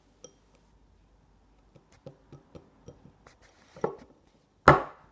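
Handling of the freshly chilled sweet slime and its container: a run of small, light taps and clicks, then one louder knock near the end.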